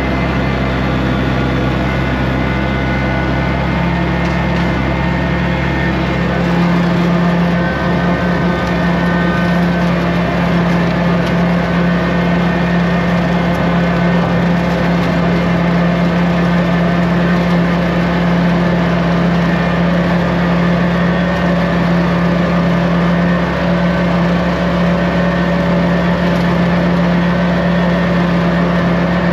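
Kubota compact tractor's diesel engine running steadily under load while mowing with a PTO-driven rotary brush cutter. About six seconds in the engine note shifts slightly higher and a little louder, then holds steady.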